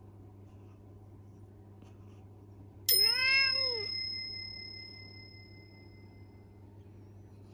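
A cat's single short meow, rising then falling in pitch, sounding together with a bright chime sound effect that starts suddenly about three seconds in and rings on, fading over a few seconds.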